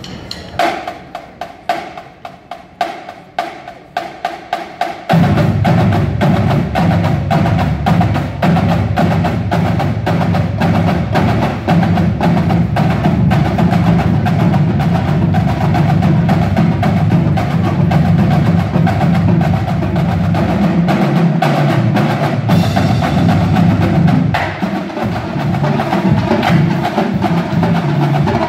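Marching drumline of snare drums, tenor drums and bass drums. Sparse, quiet, sharp clicks for about the first five seconds, quickening briefly, then the full drumline comes in suddenly and loud with dense, continuous drumming and bass drum under it.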